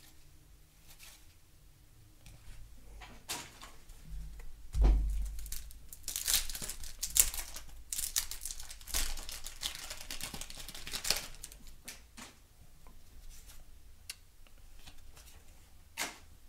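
Wax-paper wrapper of a 1991 Topps baseball card pack being torn open and crinkled, a crackling tear of several seconds in the middle, after a soft thump. Light clicks of cards being handled come before and after.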